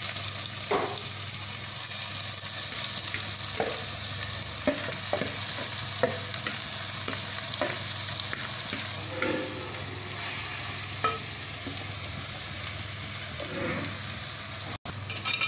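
Chopped ridge gourd, grated coconut and shallots sizzling in hot coconut oil in a clay pot, stirred with a steel spoon that scrapes the pot. A steady hiss with scattered short scrapes and clicks; it breaks off for an instant near the end.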